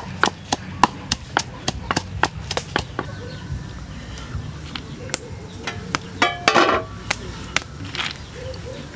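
Wooden pestle pounding chopped aromatics in a wooden mortar, steady knocks about three a second that stop about three seconds in. Later a brief metallic clatter, fitting the metal lid being lifted off the steaming cooking pot.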